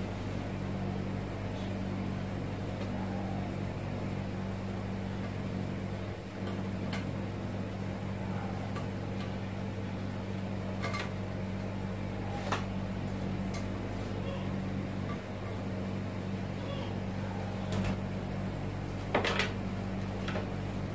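Steady low electrical hum, with a few light clicks and taps from small parts and a screwdriver being handled.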